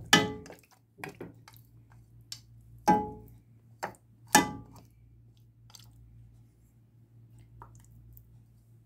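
Spatula knocking and scraping against a non-stick pot while spreading marinated mutton into a layer: a few sharp clanks with a short ring, the loudest at the start, about three seconds in and about four and a half seconds in, with softer taps between.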